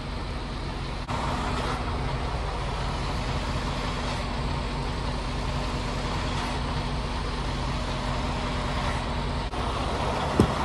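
Semi truck's diesel engine idling steadily, heard from inside the cab, with one short sharp click near the end.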